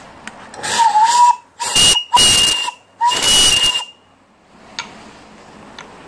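Small brass steam whistle on a live-steam boiler blown in four blasts: a longer first blast whose pitch sags slightly, a very short second, then two longer ones, each a shrill tone over loud steam hiss.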